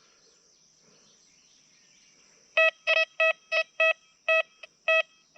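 XP Deus 2 metal detector giving a quick run of short, same-pitched beeps, about three a second, starting a little over halfway in: its target tone on a US clad quarter, which it reads as 96.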